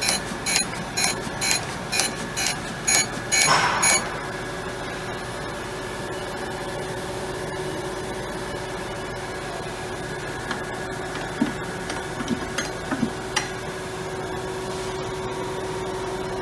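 Surface grinder running, its wheel spindle giving a steady hum. During the first four seconds a run of sharp ringing ticks comes about twice a second, and a few isolated clicks follow later.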